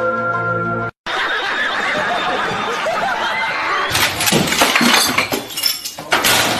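Flute music that cuts off abruptly about a second in, then a noisy stretch. From about four seconds in comes a rapid run of crashing and breaking sounds, with things clattering and something like glass shattering.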